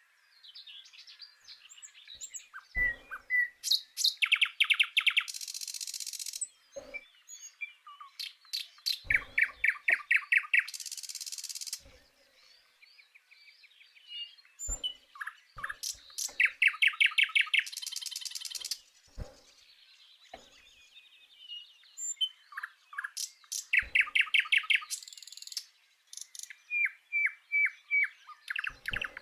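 A songbird singing repeated phrases, each a rapid run of short, even notes, about every six or seven seconds. Between and after the phrases there are stretches of high, hissing buzz.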